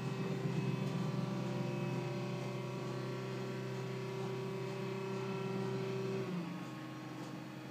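Curved stairlift's electric drive motor running with a steady hum as the chair travels along its twin-tube rail; about six seconds in, the hum drops in pitch and gets quieter.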